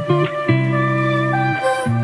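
Background music: plucked guitar playing sustained chords that change about every half second.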